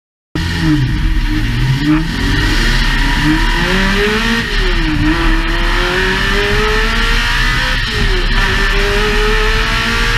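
Ferrari 360 Modena's 3.6-litre V8, breathing through a stock F430 exhaust converted to fit, revved repeatedly at a standstill. Its pitch climbs and drops several times, then makes a slower, longer climb over the second half.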